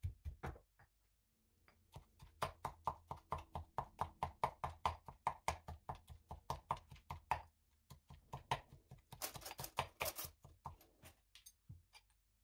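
Stone pestle pounding Thai red curry paste ingredients (shallots, chillies) in a stone mortar: steady dull strikes about three to four a second, with two short breaks, some strikes sharper than others.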